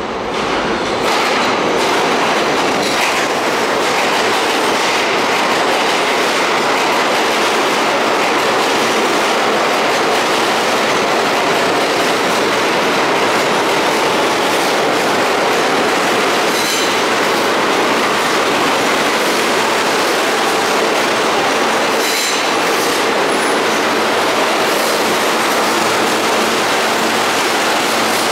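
R160 subway train pulling into the station: loud, steady noise of steel wheels on the rails, growing over the first second, with clicks over the rail joints and a couple of brief high wheel squeals in the second half.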